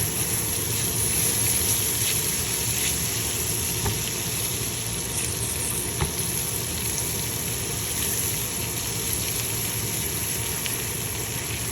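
Butter and caramelizing raw sugar sizzling steadily in a hot pan, with a couple of faint clicks.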